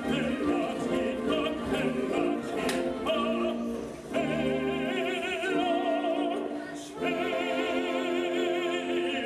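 Operatic singing with long held notes that waver with vibrato. A new sustained note starts about four seconds in and another about seven seconds in.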